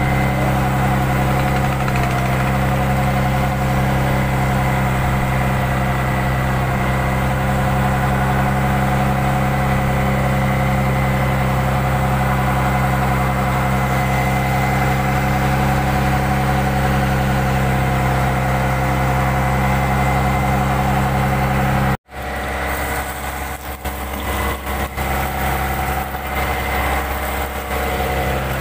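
Fishing boat's engine running steadily with an even hum. It cuts out for an instant about three-quarters of the way through, then carries on less evenly.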